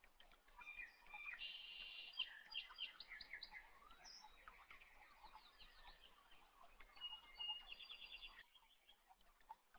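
Faint birdsong: birds chirping with quick trills and runs of repeated high notes, thinning out near the end.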